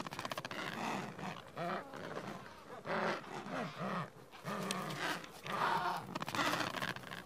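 Adélie penguins calling: a string of short, harsh, growling squawks, about seven in a row, from nesting birds squabbling over the stones of their nests.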